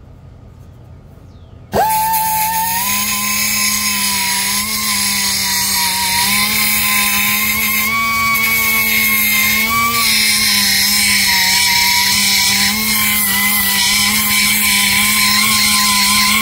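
A handheld grinder starts about two seconds in and runs steadily with a high whine and harsh hiss, trimming the edge of a steel cab corner patch panel so it fits. Its pitch dips and wavers slightly as it bites into the metal.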